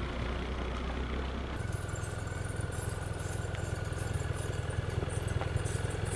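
BMW off-road motorcycle engine running at low, steady revs while the bike rolls down a gravel slope on engine braking alone, without the brakes. About a second and a half in, the sound changes to a low, pulsing engine note with a fine crackle over it.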